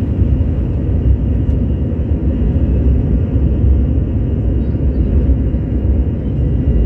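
Steady low rumble of an Airbus A321's jet engines and airflow, heard inside the passenger cabin at takeoff power.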